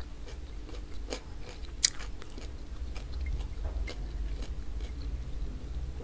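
Close-miked mouth sounds of a person chewing food, with scattered wet clicks and smacks; one sharp click about two seconds in is the loudest. A steady low hum lies underneath.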